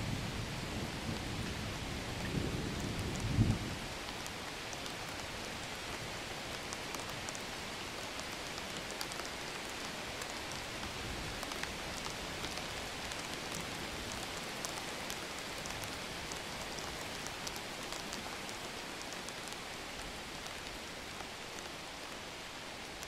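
Steady rain falling, with individual drops ticking sharply over an even hiss. A low rumble of thunder runs under it at first and ends abruptly about three and a half seconds in.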